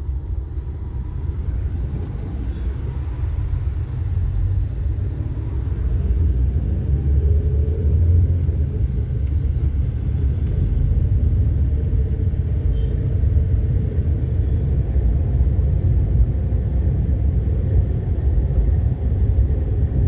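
Steady low rumble of a car driving in city traffic, heard from inside the cabin: tyre, road and engine noise, growing a little louder about six seconds in.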